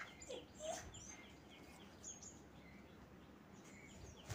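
Faint background bird calls: short high chirps repeated in quick runs, with a few lower whistled notes, mostly in the first second and again near the end, over low room noise. A short knock just before the end.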